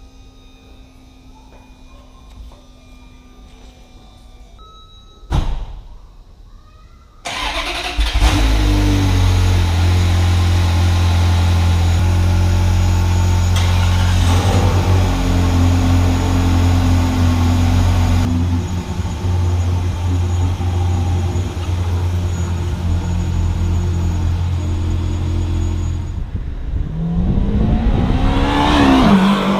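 Stock-exhaust Ferrari V8 engine cranked and started about seven seconds in, after a sharp click. It settles into a steady, loud fast idle, then is revved up and back down near the end.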